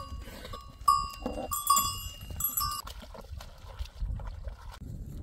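Small bells on goats jingling and clinking as the herd jostles at the water basins, in many short bright rings; the ringing stops a little over halfway through, leaving only low-pitched noise.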